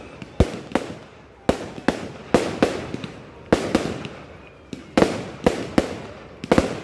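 Fireworks going off in a rapid, irregular barrage: about two sharp bangs a second, each trailing off in a short rumbling echo.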